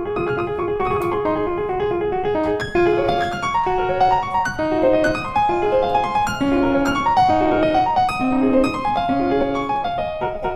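Background piano music: a melody of quick single notes over a light accompaniment, a little fuller and louder from about a quarter of the way in.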